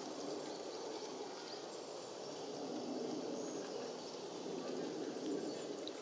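Steady outdoor background rumble, with a few faint, short high bird chirps now and then.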